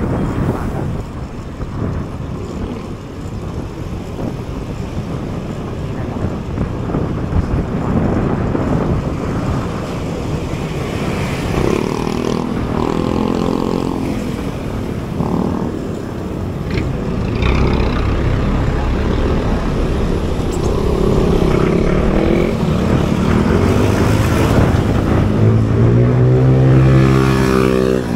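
Road traffic heard from a moving bicycle: wind rushing on the microphone under the engines of passing motor vehicles. Near the end a close engine is loudest, its pitch falling as it goes by.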